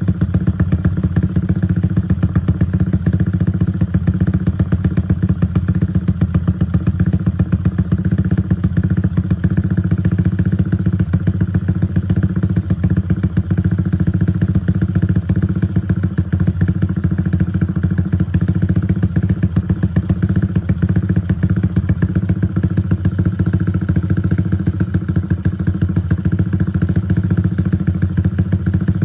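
Yamaha Y15ZR's 150 cc single-cylinder four-stroke engine idling steadily and loudly, its exhaust pulsing evenly with no revving.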